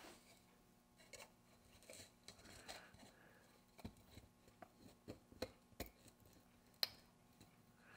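Faint clicks, taps and rubbing of small parts being handled, with one sharper click about seven seconds in, over a faint steady hum.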